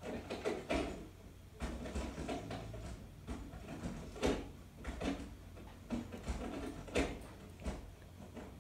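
Handling noise: about ten short knocks and clicks, irregularly spaced, with no music playing.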